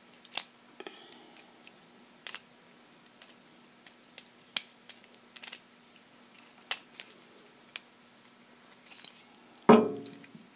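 Utility knife cutting off the stray strands of braided shield wire at a twist-on connector on RG6 coaxial cable: a series of short, sharp, irregular clicks. A louder knock comes near the end.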